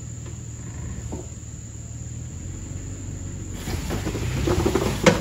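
Toyota 4Runner crawling over a rock ledge: the engine runs low and steady, then the sound grows louder with tyres working over rock about three and a half seconds in, and a sharp knock comes just before the end.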